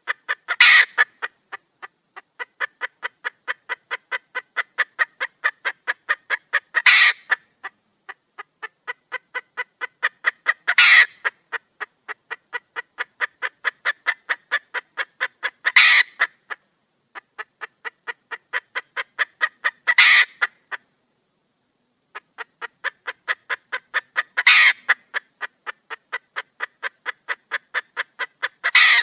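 Wild junglefowl hen calling for a mate: a steady run of short clucks at about four a second, broken every four or five seconds by a louder, longer call, with a brief pause about three-quarters of the way through.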